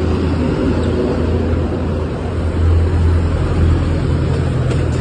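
Road traffic: a steady low engine hum from nearby vehicles, swelling a little in the middle.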